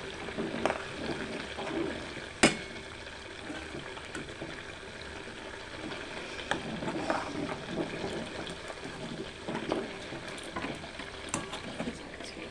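Milk cream cooking down into ghee in a kadai, bubbling and sizzling with small irregular crackles as the milk solids fry and the ghee separates. A single sharp knock comes about two and a half seconds in.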